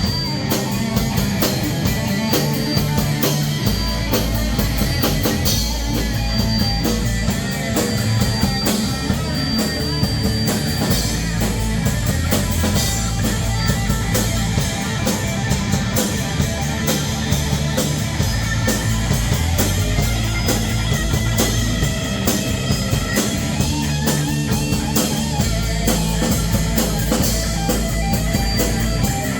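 Hard rock band playing live, with electric guitar, bass and a drum kit keeping a steady beat.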